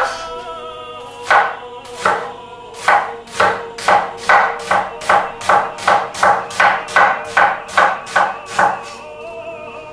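Kitchen knife slicing an onion on a wooden cutting board, each cut ending in a knock on the board. A few spaced cuts come first, then a steady run of about three cuts a second that stops shortly before the end.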